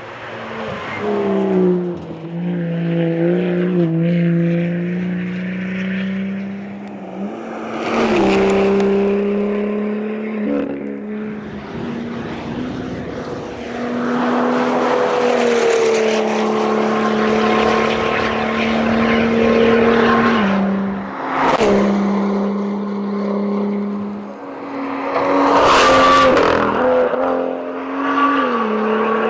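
BMW M2 race car engine running hard at speed, its pitch holding steady then stepping up or down several times as gears change. A loud rushing noise builds through the middle, and there are three sharp cracks along the way.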